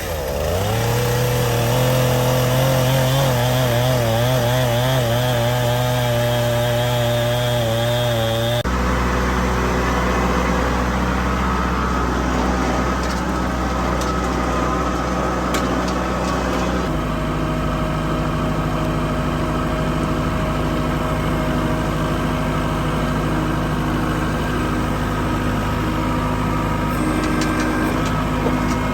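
Engines running steadily in three cut-together stretches, the pitch and character changing abruptly about nine seconds in and again near the middle.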